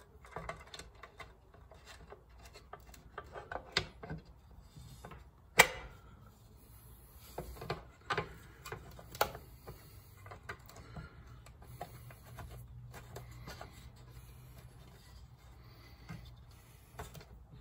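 Scattered light clicks and taps of small screws and a fuel door mounting plate being handled and screwed together by hand, with one sharper click about five and a half seconds in, over a faint low hum.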